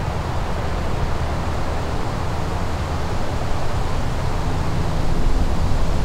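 A distant stationary train horn blaring continuously, heard as faint steady low tones beneath a louder steady rushing noise.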